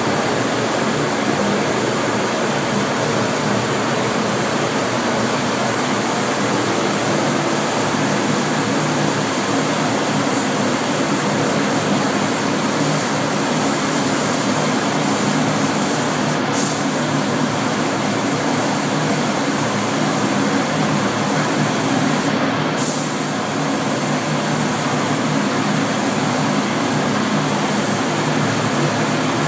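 Compressed air hissing steadily through a gravity-feed paint spray gun as it sprays, with a steady low hum underneath. The hiss breaks off briefly twice, a little past halfway and again about six seconds later, as the trigger is let go.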